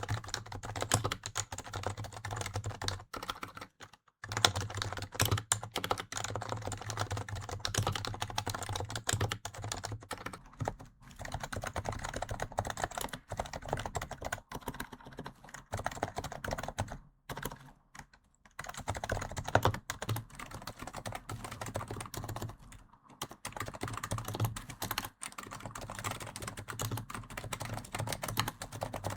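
Fast continuous typing on Japanese electrostatic capacitive (Topre-type) keyboards: a dense stream of keystrokes, broken by a few short pauses about 4, 17 and 23 seconds in.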